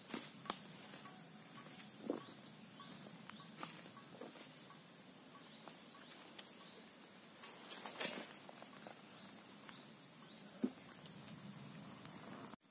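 Steady, high-pitched insect drone, with faint scattered crackles and ticks from a small twig fire burning under a moka pot.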